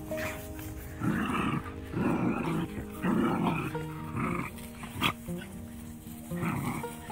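Dogs vocalising in about five short, rough bursts over steady background music, with one sharp knock about five seconds in.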